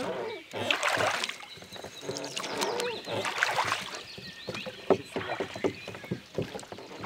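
Oars being rowed in a small rowboat: repeated knocks of the oars working in their oarlocks, with the swish and splash of the blades in the water, stroke after stroke.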